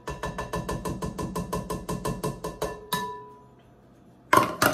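Rapid clinking of a utensil against a glass mixing bowl, about eight strokes a second, each making the bowl ring. It stops with one harder knock that rings on briefly, and two loud knocks follow near the end.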